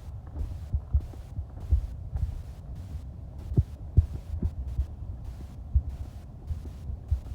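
Irregular low thumps over a low rumble from a handheld camera's microphone being carried while walking: footsteps and handling noise.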